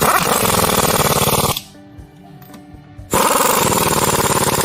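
Berkling 2443J compact 1/2-inch air impact wrench hammering lug nuts tight: a burst of rapid impacts about a second and a half long, a pause of about a second and a half, then a second burst.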